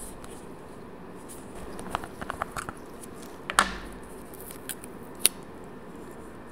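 A small plastic screw-top cosmetic jar of builder gel being opened by hand. The lid turns off with a run of small clicks about two seconds in and a sharper click a little later, followed by a couple of light ticks as the seal inside is picked at.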